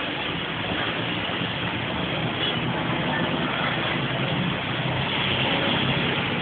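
Street traffic in the rain: a vehicle engine running under a steady hiss of rain and wet road.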